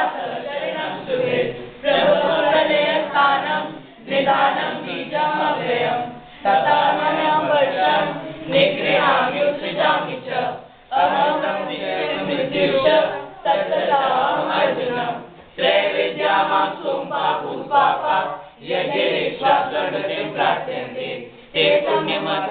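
A group of voices chanting a Sanskrit prayer in unison, in phrases of about two seconds with short breaks for breath between them.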